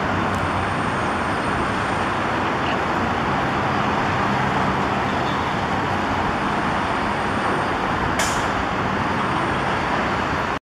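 Diesel engines of a Komatsu PC200 excavator and six-wheel dump trucks running steadily, with a short hiss about eight seconds in. The sound cuts off abruptly near the end.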